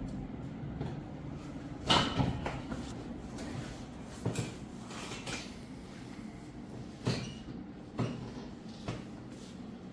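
A series of short knocks and thumps, about seven at uneven intervals, the loudest about two seconds in, over a steady low hum.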